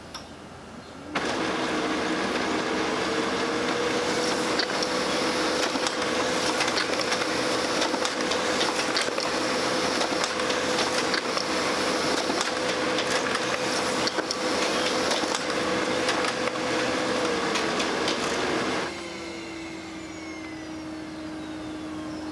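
Brother laser printer running: about a second in its motor starts, with a hum rising in pitch, and it runs with a loud, steady whirring noise. Near the end it winds down and cuts off, leaving a quieter steady hum.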